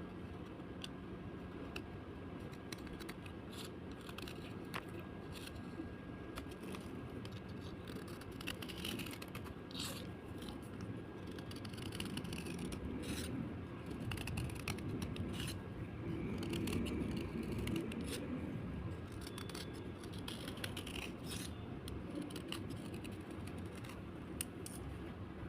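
Slate being scraped, a dry scratchy sound full of irregular sharp clicks and crackles.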